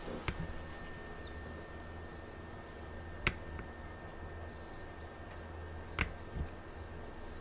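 A few short, sharp knocks or clicks, about three seconds apart, over a steady low hum. The last knock is followed by a duller thump.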